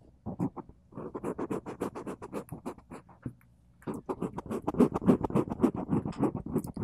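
Fingers scratching directly on the microphone capsules of a handheld audio recorder, in quick close-miked strokes several a second, with a short pause about halfway through.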